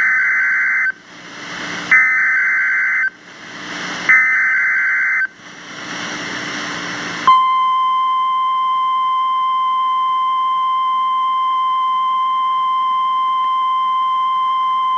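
NOAA Weather Radio Emergency Alert System test on 162.550 MHz: three bursts of SAME digital header data, each a harsh warbling buzz about a second long, separated by radio hiss. About seven seconds in, the steady 1050 Hz attention tone starts and holds as one unbroken tone.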